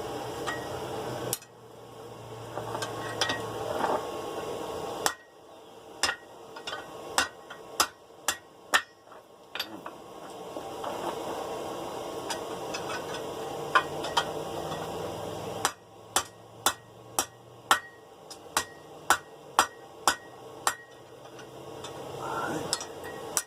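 Hand hammer striking hot 1/2-inch round steel bar on an anvil in two runs of sharp blows, about two a second, with stretches of steady rushing noise between them.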